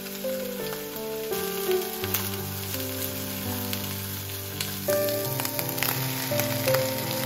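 Sliced bell peppers and ham sizzling in a frying pan, with clicks from a wooden spatula stirring them against the pan, under soft background music with a simple melody.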